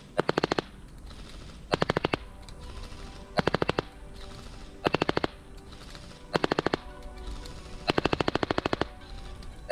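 Specna Arms SA-46 Core electric airsoft light machine gun firing six short bursts about a second and a half apart, at around 14 shots a second. The burst near the end is the longest. Quiet background music plays under it.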